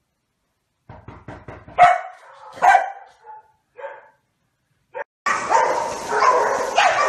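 Dog barking, two loud short barks about two and three seconds in with a few softer ones after. From about five seconds in, continuous water splashing with dogs barking and yipping through it.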